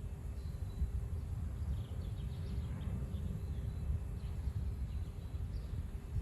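Strong wind gusting and buffeting the microphone in a steady, uneven low rumble, with a few faint high bird chirps around the middle.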